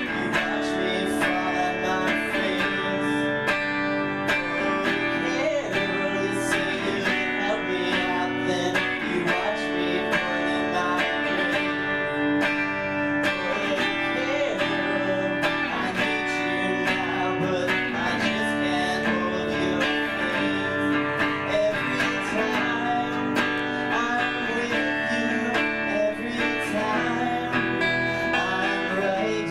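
Live band playing a guitar-led instrumental stretch of a song, with strummed and picked guitars and no vocals.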